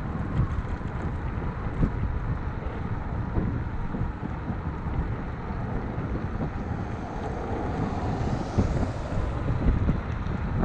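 Wind buffeting the microphone, with steady road rumble, while riding an electric scooter at speed on asphalt.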